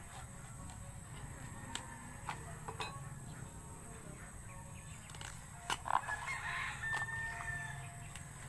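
A rooster crowing once, starting about six seconds in and held for a second and a half. Around it, small sharp clicks and snaps of a knife cutting and peeling the bracts off a banana flower.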